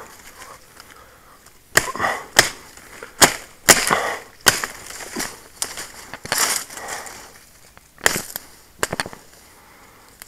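Fresh green sapling branches being cut and snapped with a hand blade: a string of sharp irregular cracks and snaps, with leaves rustling between them.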